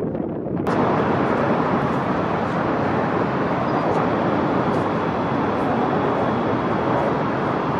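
Steady, even roar of distant city traffic, which comes in abruptly less than a second in.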